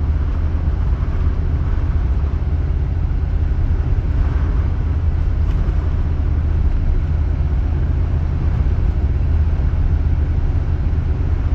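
Steady low rumble of a vehicle driving on a snow-covered highway, heard from inside the cabin: engine and tyre noise with no change in pace.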